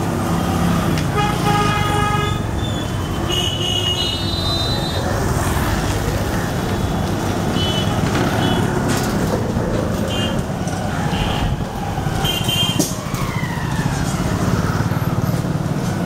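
Street traffic: engines of passing motor scooters and other vehicles running in a steady drone, with vehicle horns honking several times, the longest honk about a second in.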